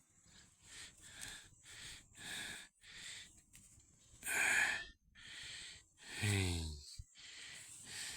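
Heavy, wheezy breathing close to the microphone, about two breaths a second, with a low voiced grunt that falls in pitch about six seconds in.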